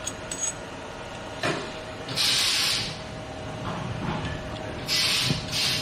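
Two bursts of loud hissing, each under a second and about two and a half seconds apart, with a sharp knock shortly before the first.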